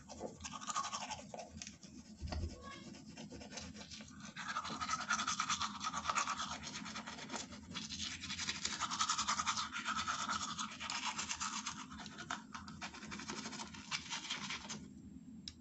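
Manual toothbrush scrubbing teeth with foaming toothpaste: a steady run of quick, scratchy back-and-forth brushing strokes.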